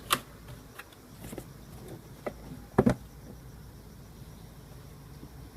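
A shoebox and sneakers being handled as the shoes are taken out: a few short knocks and rustles, the loudest a little before three seconds in, then only faint handling.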